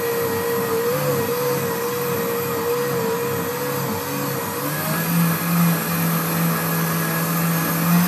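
Countertop blender running at speed, puréeing cooked pumpkin, vegetables and broth into a smooth soup. Its steady motor hum changes to a lower pitch about five seconds in.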